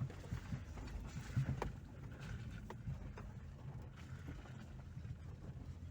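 Opel Zafira driving slowly: a steady low rumble of engine and road, with several irregular knocks from the front suspension. The knocking is still there after the strut work, and its cause has not been found.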